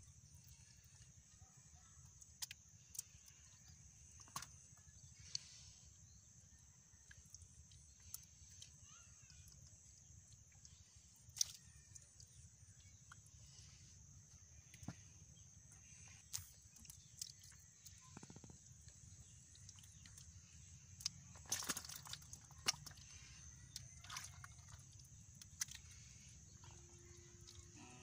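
Faint, scattered wet clicks and small splashes of fish wriggling and slapping in shallow mud and water, busiest about three quarters of the way through, over a steady high hiss.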